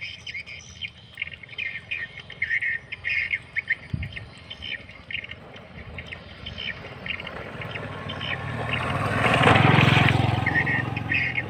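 Small birds chirping in quick short bursts, then a vehicle passing by, its noise swelling up to the loudest point near the end and fading again.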